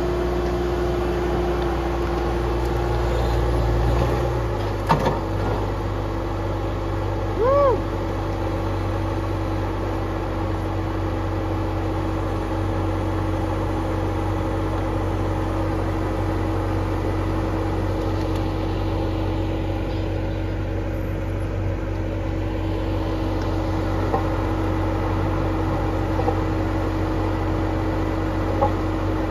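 Bobcat T190 compact track loader's diesel engine running steadily, its note dropping about four seconds in as it is throttled down. A knock about five seconds in and a brief squeak a couple of seconds later.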